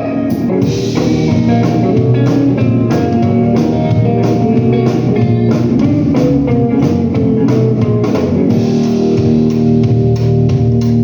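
Blues-rock band playing an instrumental passage: guitar over drum kit and bass guitar, with a steady beat.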